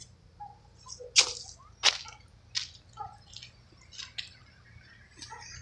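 A string of sharp clicks and crunches close to the microphone, irregular but roughly one every 0.7 s, the two loudest between one and two seconds in, over a faint low hum.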